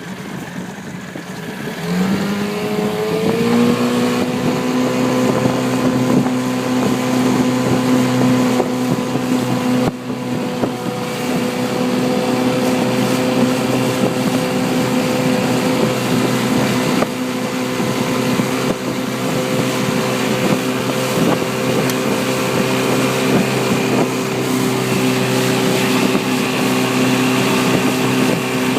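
Boat motor speeding up from idle about two seconds in, then running steadily at a constant pitch.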